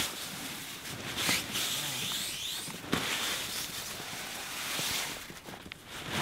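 Footsteps in thin snow, then hands brushing and patting snow off a nylon dome tent's fly, the fabric rustling, with two sharper knocks about a second and three seconds in.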